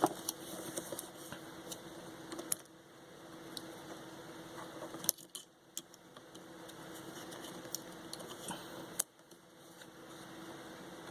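Scattered light clicks and ticks of small plastic parts and cable ties being handled and pried during headset disassembly, with two sharper clicks about five and nine seconds in, over a faint steady hum.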